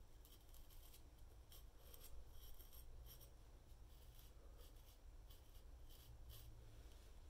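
A Damascus-steel kitchen knife shaving lathered whiskers off the upper lip. It makes a quick run of short, faint scraping strokes, several a second, with brief pauses between them.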